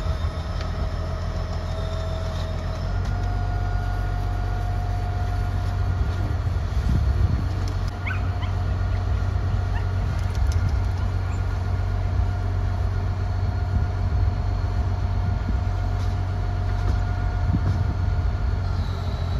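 Heavy diesel engine of a barge-mounted 60-ton crane running steadily under load, a constant low drone with a steady high whine over it that steps up slightly in pitch about three seconds in.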